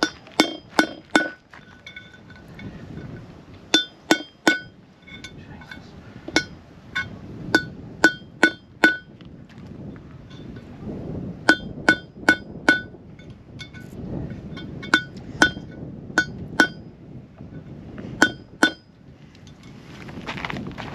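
Hammer driving a punch against a wheel bearing's outer race (cup) to tap it out of a caravan's brake drum hub: sharp, ringing metallic blows in clusters of three to six, with short pauses between clusters.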